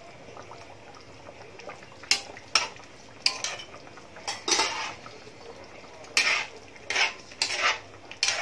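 Metal spatula stirring in an aluminium pan of simmering coconut milk, clinking and scraping against the pan's side about nine times at irregular intervals.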